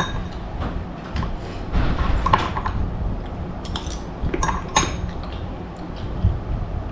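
Metal spoon clinking and scraping against a small ceramic bowl while scooping food, with a few sharp clinks scattered through, over a steady low hum.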